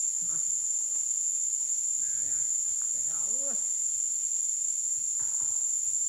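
Forest insects droning steadily in one high-pitched, continuous buzz, the loudest sound throughout. Faint low sliding calls come in briefly near the middle.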